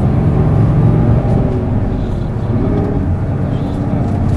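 Isuzu Erga PJ-LV234L city bus's inline-six turbodiesel running hard under load. The engine note eases a little after about two seconds and builds again near the end.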